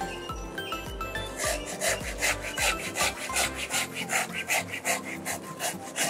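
Hand pruning saw cutting through a living Philippine fig (ficus) branch, rasping in quick, even back-and-forth strokes that start about a second in and stop shortly before the end, over faint background music.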